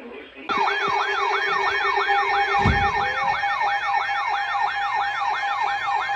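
Electronic emergency alert siren wailing up and down about three times a second over a steady tone, sounding ahead of a tornado warning broadcast. It starts about half a second in, with a short low thump near the middle.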